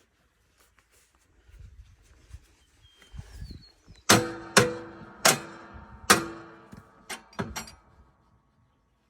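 A run of sharp knocks with a short ring after each: four loud ones spaced half a second to a second apart, then three lighter ones in quick succession.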